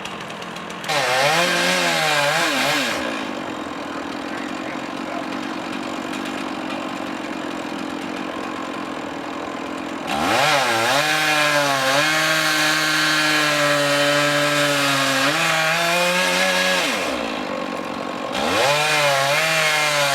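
Stihl two-stroke chainsaw dropping back to a lower, steadier note between stretches of high revs. It revs briefly about a second in, again for about seven seconds from about ten seconds in, and again near the end, its pitch sagging and recovering as if under load in a cut.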